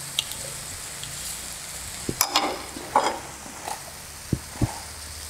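Pork belly and vegetables sizzling on a tabletop griddle, a steady hiss, with a few sharp light clicks scattered through it.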